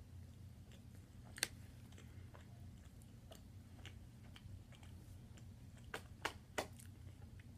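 Quiet close-up chewing of steak pieces, with soft wet mouth clicks. One sharp click comes about a second and a half in and three more come near the end, over a low steady hum.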